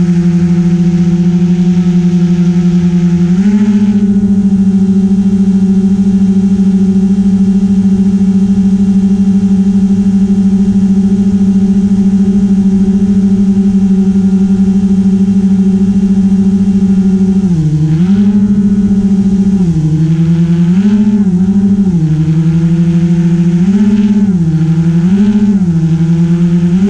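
GoPro Karma quadcopter's motors and propellers humming steadily. The hum steps up in pitch about three seconds in as the drone climbs. In the last third it dips and rises over and over as the motors change speed.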